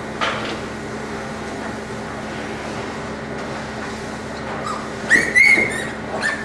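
Piglets squealing: a few short, high-pitched squeals near the end, over a steady background hum.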